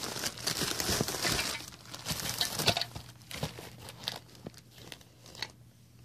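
Plastic packaging crinkling and rustling as it is handled, with short clicks and crackles. The crinkling is busiest over the first few seconds, then thins to scattered clicks.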